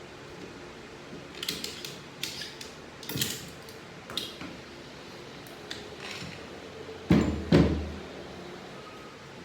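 Metal transmission parts being handled on a workbench: a series of light clinks and rattles, then two loud knocks about seven seconds in, over a steady background fan hum.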